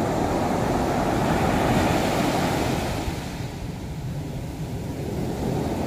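Heavy sea surf breaking and washing up a sandy beach: a rushing wash that is louder for the first three seconds, then eases off and swells slightly again near the end.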